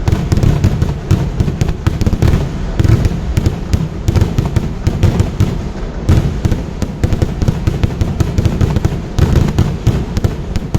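Fireworks barrage: a dense, unbroken run of rapid firework bangs and deep booms, many blasts a second overlapping one another.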